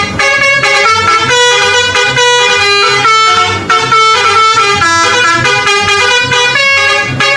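Multi-tone 'telolet' bus horn playing a quick melody, the notes changing about four times a second, and cutting off suddenly near the end.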